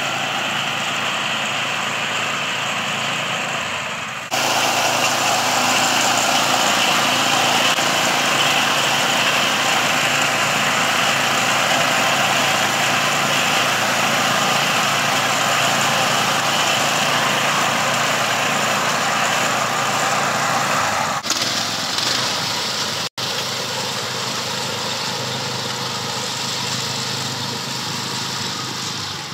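Walk-behind rice reaper's small air-cooled engine running steadily under load as it cuts standing rice. The level jumps up abruptly about four seconds in, and there is a brief dropout near the end.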